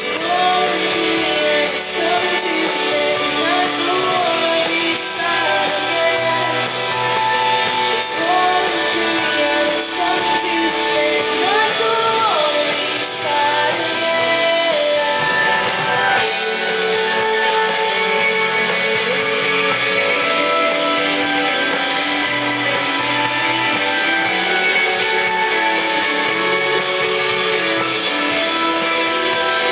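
Live band performing a song: a woman singing lead over electric guitars, keyboards and drums.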